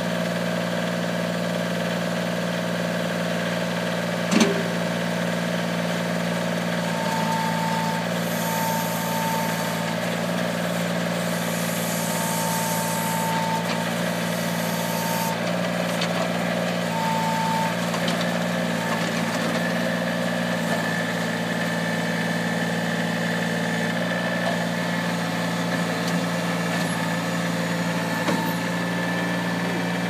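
Kubota L35 tractor-loader-backhoe's diesel engine running steadily while its hydraulic functions are worked. A higher whine comes and goes in several short spells, and there is a single sharp clank about four seconds in.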